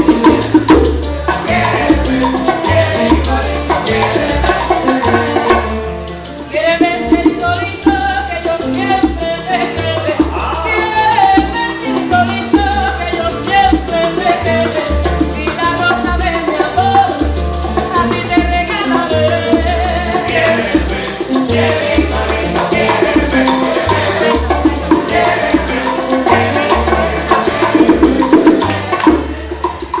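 Cuban son music playing: a band with a steady pulsing bass, percussion and a melodic line over it.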